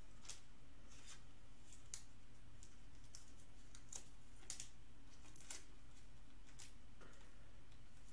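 Faint, short rustles and clicks of a trading card in a clear plastic sleeve being handled and slid into a plastic holder, coming irregularly every half second to a second.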